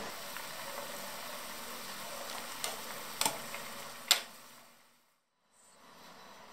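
A steady hiss of soup simmering in a metal pot, with a few sharp clinks of a ladle against the pot; the sound fades out about five seconds in, and a quieter steady background follows.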